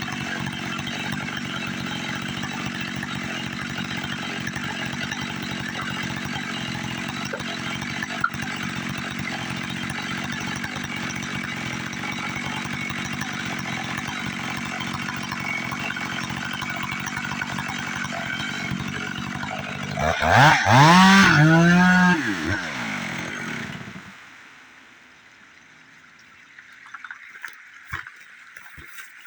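Two-stroke chainsaw running steadily at high speed, sawing up a fire-killed Sitka spruce log. About twenty seconds in, the engine revs up and down several times, loudest here, then winds down and stops about four seconds later.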